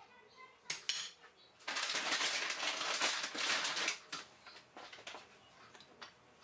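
Walnut pieces being handled and crumbled by hand: a dense crackling rattle for about two seconds, followed by a few lighter clicks as the pieces are scattered onto a plate.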